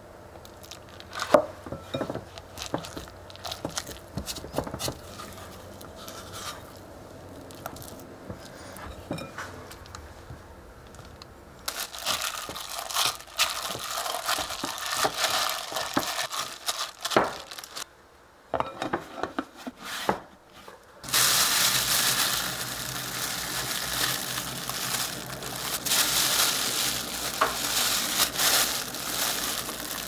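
Kitchen handling sounds of dough being worked in a glass bowl: scattered clicks and scrapes, then denser rustling as a plastic-gloved hand kneads it. Over the last third, a steady plastic crinkling as a bag of frozen meat is handled.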